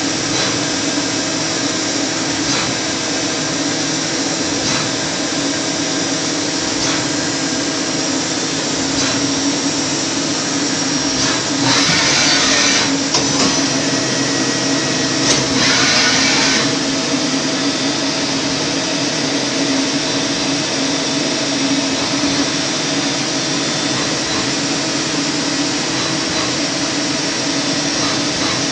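FTC30 CNC lathe running, a steady machine hum with a constant whine, and two louder hissing stretches of about a second each, about twelve and sixteen seconds in.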